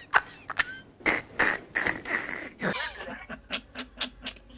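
A man laughing in a string of short, loud bursts, about three a second, that turn into quicker, shorter bursts through the second half.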